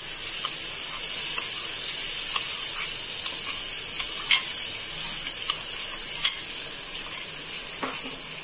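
Spinach purée poured into hot oil and spices in a kadhai, sizzling steadily from the moment it goes in, with scattered crackles and pops.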